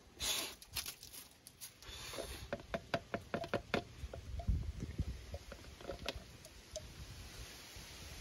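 Two-stroke oil pouring from a plastic measuring cup into a plastic gas can to mix premix fuel, with handling rustle at first, then a run of quick drips and light knocks about two to four seconds in and a few scattered ones after.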